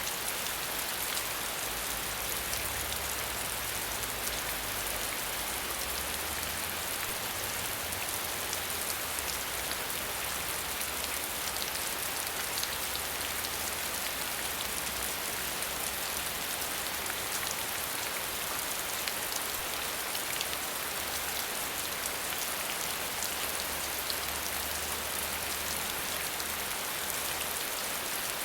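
Waterfall: a steady rush of falling water with a dense patter of splashing drops, unchanging throughout.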